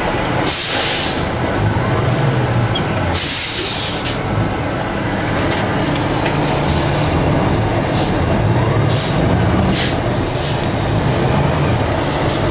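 Madill 120 grapple yarder's diesel engine running steadily, heard from inside its cab. Sharp air hisses cut in over it: two longer ones near the start and several short ones later.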